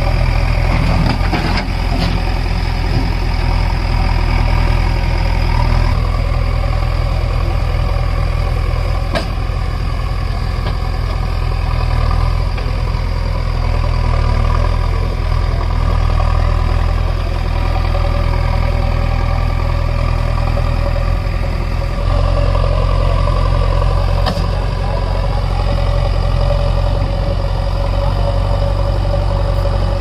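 Heavy diesel engine idling steadily, a deep even hum with no revving.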